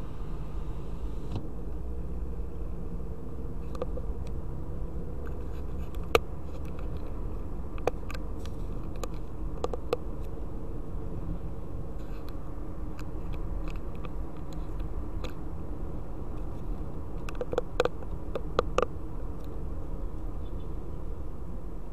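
Steady low rumble of a car's engine and tyres on the road, heard from inside the cabin. A few sharp clicks or rattles break through, the loudest about six seconds in and a cluster of them near the end.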